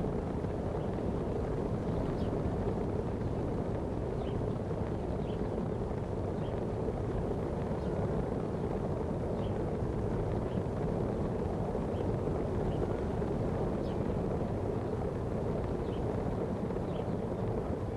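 Steady wind rush on the microphone with a low rumble, as from riding a bicycle at speed, with faint short chirps now and then.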